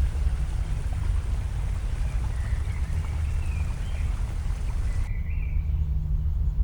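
Steady wind rumble buffeting a phone microphone outdoors, with a few faint high chirps in the middle.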